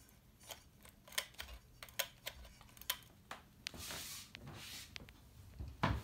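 NuTone Verandah II ceiling fan's spinner motor running on medium speed: a faint hum with light, irregular clicking, a noise the owner puts down to worn blade-arm grommets. A brief rustle about four seconds in.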